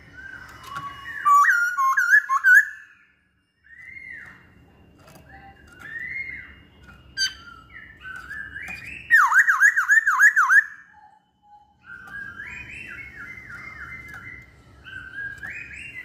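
Masked laughingthrush (poksay hongkong) singing loud, clear whistled phrases, with two bursts of rapid looping notes, the second a quick run of about five, and softer phrases in between.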